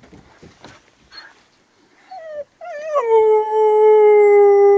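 A dog whines briefly, then from about three seconds in starts one long, steady howl. She is upset by dogs barking in the distance.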